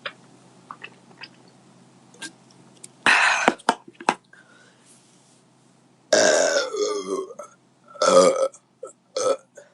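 A woman belching after drinking beer: a few separate belches, the longest starting about six seconds in and a shorter one a little after nine seconds.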